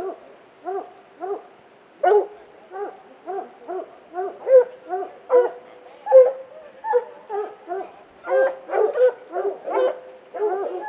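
Several hunting dogs barking steadily at a treed mountain lion, short barks about two to three a second from more than one dog, with a few longer drawn-out notes in the second half. It is the bark that tells the hunters the lion is treed.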